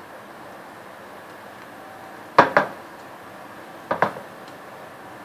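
Light knocks on a glass serving dish as cucumber garnish pieces are set down against it: two quick double taps about one and a half seconds apart.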